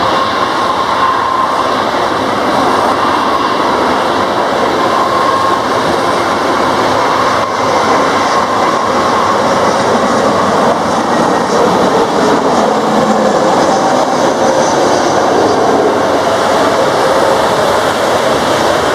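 Airbus A320's CFM56 jet engines on landing approach and touchdown: a steady, loud rumble with a faint whine, heard through heavy rain.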